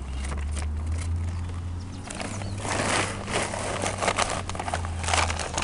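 Shovel digging into a pile of wood chip mulch and tipping it into a dog food bag: crunching, rustling scrapes with sharp clicks, thickest from about halfway through, over a steady low hum.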